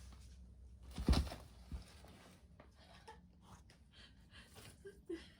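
IKEA blue polypropylene shopping bag rustling and crinkling as a cat plays in it, with a heavy thump about a second in.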